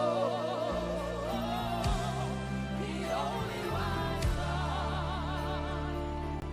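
Gospel worship music: voices hold long notes with vibrato over sustained keyboard and bass chords that change every second or so.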